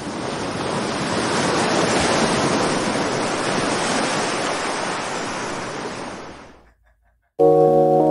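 Ocean waves washing on a shore, a steady rushing hiss that fades out about six and a half seconds in. After a brief silence, music with held notes begins near the end.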